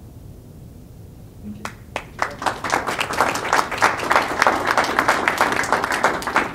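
Audience applauding: a few single claps about a second and a half in, building within a second to steady, dense clapping from many hands.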